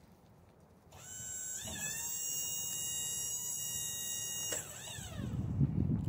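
An electric motor on a Wood-Mizer sawmill whines up about a second in, holds a steady high pitch for a couple of seconds, then winds down. A low rumble follows near the end.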